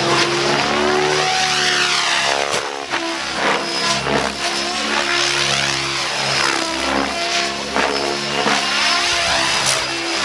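Mikado Logo 700 electric RC helicopter flying 3D aerobatics, its rotor and motor sound sweeping up and down in pitch again and again as the manoeuvres change.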